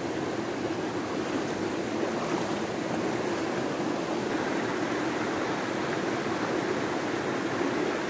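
Shallow stream rushing over rocks, a steady even noise of flowing water.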